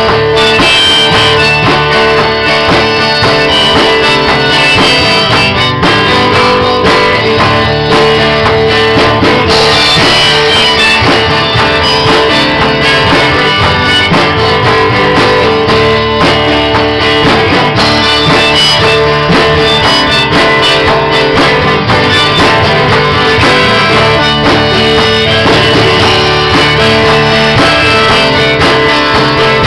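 A small rock-country band playing an instrumental break: strummed acoustic guitar, electric bass and drums, with a long held lead line on top.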